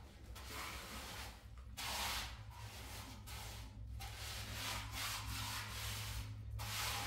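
Several rough scraping strokes in a row, each lasting about a second with short pauses between, and the last one longer.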